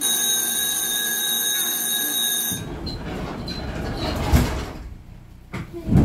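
A steady electronic signal buzzer aboard a Gotha T57 tram sounds for about two and a half seconds and cuts off suddenly. The tram's low rumble follows, with a sharp knock a little after four seconds in and another near the end.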